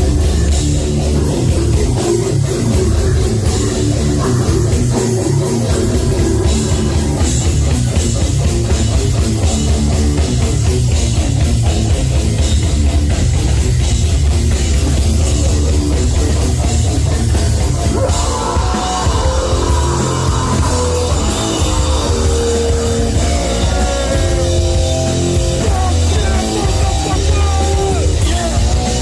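Live heavy metal band playing loud, with distorted guitars, bass and drum kit. About two thirds of the way in, a melodic guitar line comes in over the rhythm.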